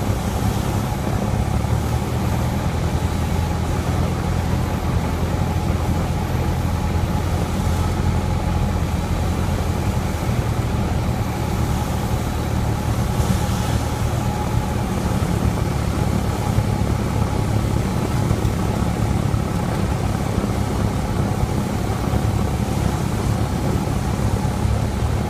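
Single-engine light aircraft's piston engine and propeller droning steadily, heard inside the cockpit during the approach to landing.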